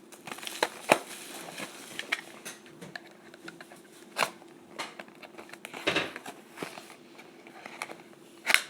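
Plastic wrapping on a box of hockey cards crinkling and tearing as the box is opened, with scattered small clicks and rustles.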